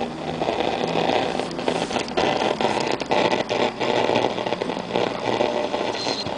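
Solid-state table radio on the AM band being tuned across the dial: static hiss and crackling from its speaker between stations.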